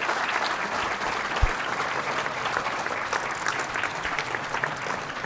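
Audience applauding, a steady patter of many hands clapping, with one low bump about a second and a half in.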